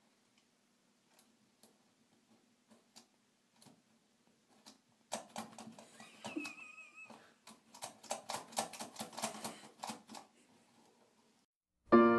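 A cat's paw scratching and batting at the bottom of a door, claws clicking and scraping in irregular taps that grow busier about five seconds in, with a short high wavering cry near the middle. Soft piano music comes in right at the end.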